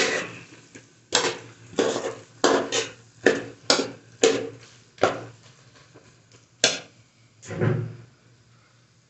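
Steel spoon knocking and scraping against the side of an aluminium pot while stirring thick okra masala, about two clacks a second. The clacks stop about five seconds in, then two more follow, the last a duller knock just before eight seconds.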